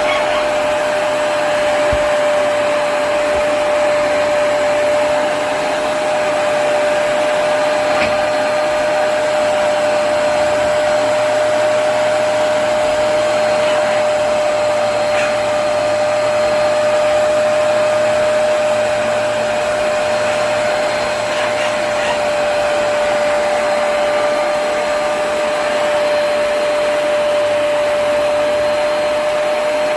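Hoover PowerDash Pet+ compact carpet cleaner running, its suction motor giving a steady rushing noise with a constant high whine.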